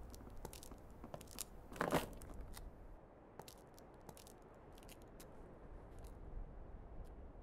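Footsteps crunching on a gritty concrete floor, with scattered small clicks and one louder crunch about two seconds in.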